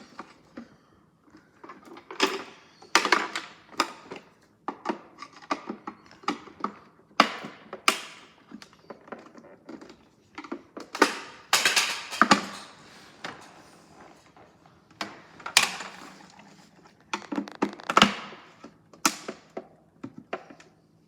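A plastic toy washing machine's casing being handled and pried at, making irregular clicks, knocks and rattles of plastic parts and tools, with a few louder clatters about eleven seconds in and near eighteen seconds. The case is still stuck on something and won't come apart.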